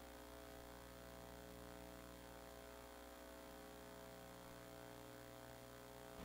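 Near silence with a faint, steady electrical hum and its overtones.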